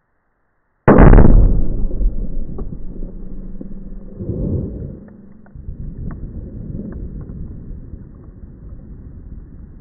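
A Tannerite exploding target detonates about a second in: one very loud blast, then a long rolling rumble that fades over several seconds, with scattered small ticks as debris comes down.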